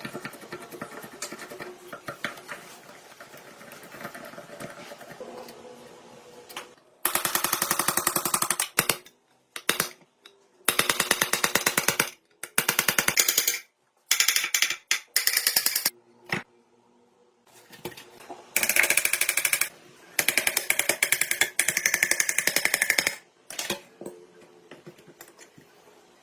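A rapid-hammering power tool run in several loud bursts of one to three seconds each, fast repeated knocks with short pauses between. These follow several seconds of quieter, steady workshop noise.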